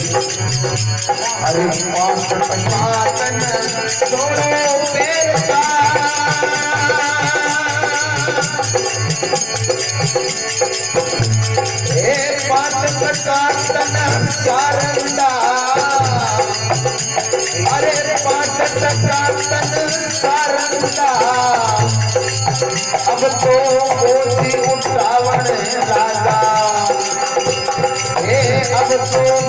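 Rajasthani folk devotional music: harmonium melody with a sung line, dholak beats and a hand-held rattling percussion instrument keeping time.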